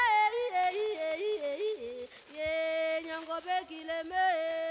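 Yodel-style singing: a voice leaping back and forth between low and high notes, each note held briefly with sharp breaks between them, pausing briefly about two seconds in.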